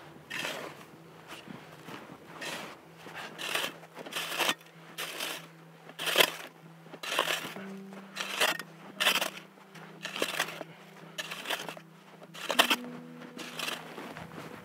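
Snow shovel digging and scraping in crusty snow, about twenty irregular crunching strokes, one or two a second, as a snow platform for a bivouac bed is dug out. Soft background music with low held tones plays underneath.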